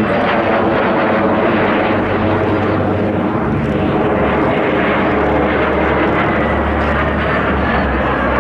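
Fouga Magister jets' twin Turbomeca Marboré turbojets running at steady power as the formation flies by, a continuous jet noise whose pitch slowly shifts as the aircraft move across the sky.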